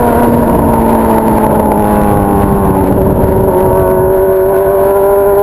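Honda Hornet's inline-four engine running through a 3-inch exhaust while riding. The revs fall over the first few seconds, then climb slowly again.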